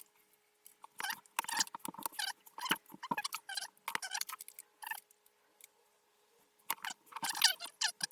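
Small plastic model-kit parts being handled and pressed together by hand: a run of irregular light clicks, taps and rattles, pausing for a second or so near the middle.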